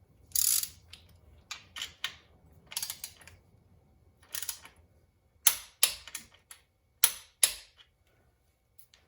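Irregular sharp metallic clicks from a click-type torque wrench and its handling as the primary chain adjuster locknut is torqued to about 25 foot-pounds. The loudest, sharpest clicks come in the second half.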